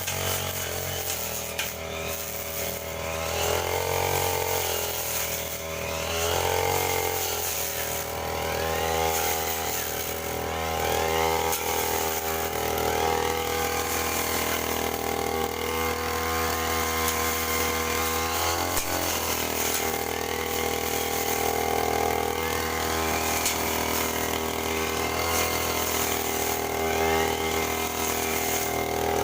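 Small engine of a motorized grass cutter running, its note wavering and dipping now and then as it cuts.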